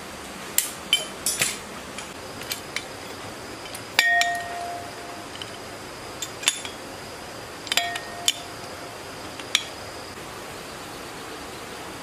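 Metal tools clinking and knocking against an old diesel engine's flywheel as a gear puller is fitted to its hub, in scattered sharp strikes. Two louder strikes, about four seconds in and again near eight seconds, ring briefly like struck metal.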